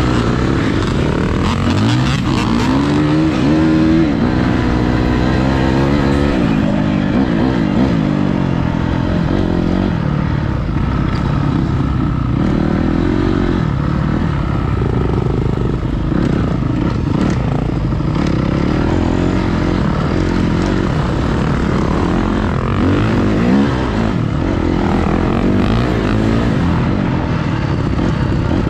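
Dirt bike engine revving hard and shifting through the gears, its pitch climbing and dropping again several times.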